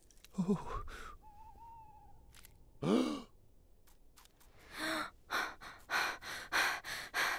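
Cartoon characters' wordless voice sounds: a short falling sigh near the start and a loud gasp about three seconds in. From about five seconds on come quick breathy pants, roughly two or three a second.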